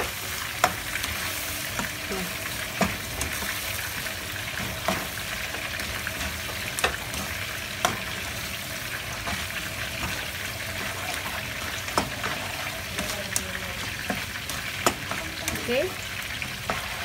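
Mortadella in a mayonnaise-ketchup sauce sizzling steadily in a nonstick pan while a spatula stirs it, with irregular clicks and scrapes of the spatula against the pan.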